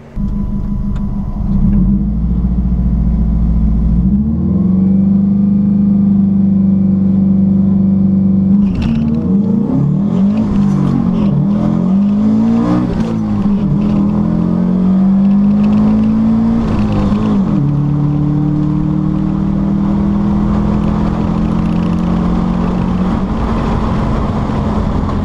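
Subaru-engined VW Beetle at full throttle on a drag run, heard from inside the car. The engine note climbs and drops back again and again through the middle of the run as it changes gear, then holds high and slowly climbs to the end.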